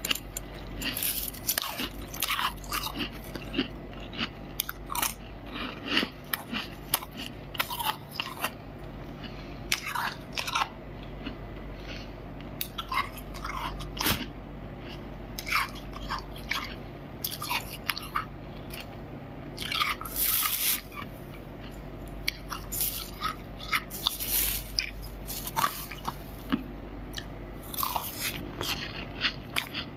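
Freezer frost crunching as a person bites and chews it, in irregular sharp crunches, with a few longer grinding crunches in the second half.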